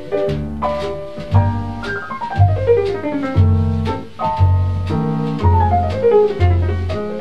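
Jazz theme music: a piano plays repeated falling runs over bass notes, with cymbal strokes keeping a steady beat.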